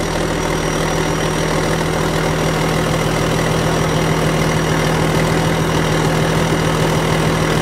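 Heavy diesel engine idling steadily, with an even hum.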